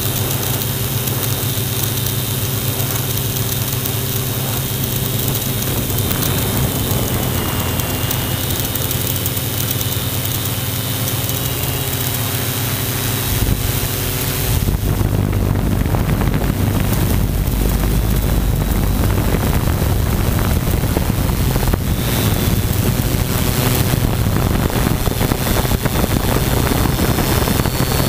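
Multirotor drone's electric motors and propellers whirring steadily, heard from the camera mounted on the drone, with wind on the microphone. About halfway through the sound turns rougher and a little louder.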